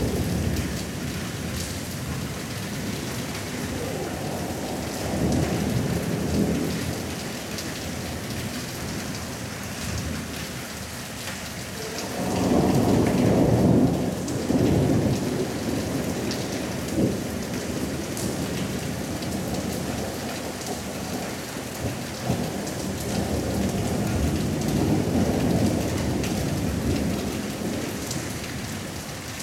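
Steady rain with three long rolls of thunder rumbling through it, the loudest about halfway through.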